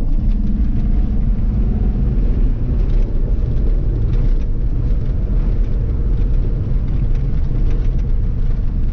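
A vehicle driving slowly over a bumpy dirt road, heard from inside the cab: a steady low engine and tyre rumble with a few light knocks from the bumps.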